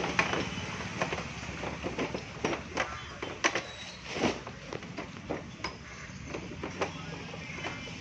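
Irregular clicks and knocks of hands and tools working on a scooter's accelerator cable and body parts, over a steady low hum.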